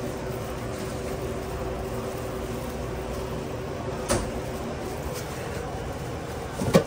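Steady mechanical hum of a sandwich shop's kitchen equipment and refrigeration, with a sharp click about four seconds in and a louder knock near the end as ingredients are handled at the counter.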